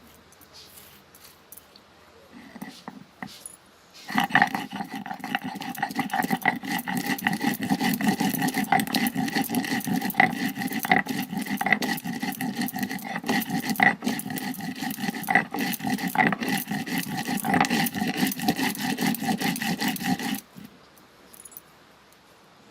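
Ingredients being ground, a loud continuous grinding with a fast, rough scraping texture that starts about four seconds in and stops abruptly about twenty seconds in.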